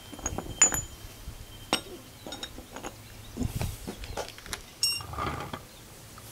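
Scattered light metallic clinks and small knocks of hand tools and parts being handled, one brief ringing clink a little before five seconds in.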